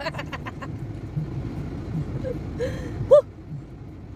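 Car engine idling with a steady low rumble, under a few short vocal sounds: a quick run of pitched sounds fading out at the start and a brief high squeak about three seconds in.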